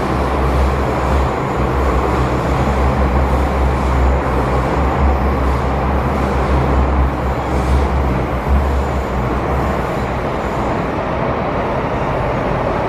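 MTR M-Train metro car running through a tunnel, heard from inside the carriage: a steady deep rumble of wheels on rail and running gear. The deepest part of the rumble eases about eight seconds in.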